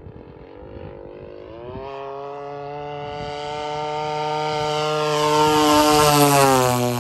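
55cc two-stroke gasoline engine of a radio-controlled FW-190 model airplane in flight. It climbs in pitch about two seconds in and grows steadily louder as the plane comes in, then drops in pitch as it passes low overhead near the end.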